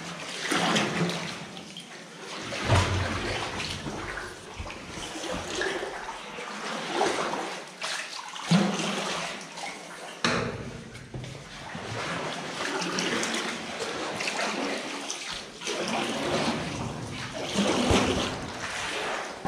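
Paddle strokes in still water: a boat paddle dipping, splashing and dripping in uneven strokes every second or two as an inflatable boat is paddled along.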